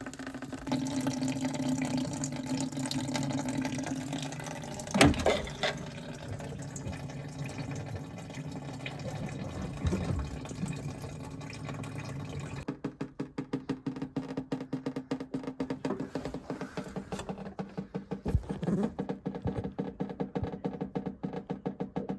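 Water running steadily, turning to a rapid, uneven, fluttering flow about halfway through.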